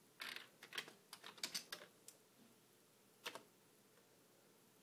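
Key presses on a Commodore 64 keyboard: a quick run of clicking keystrokes over the first two seconds, then two more a little after three seconds in.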